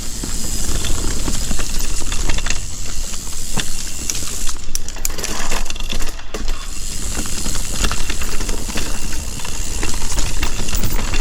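Mountain bike riding a rooty singletrack: steady wind rush on the microphone, with tyre noise and many small clicks and rattles from the bike over roots.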